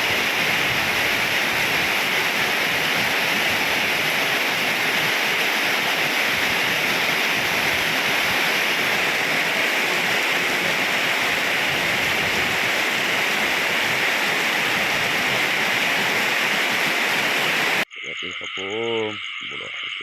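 Heavy rain falling with a steady, loud hiss. It cuts off suddenly near the end, giving way to frogs and insects calling, with a short frog croak.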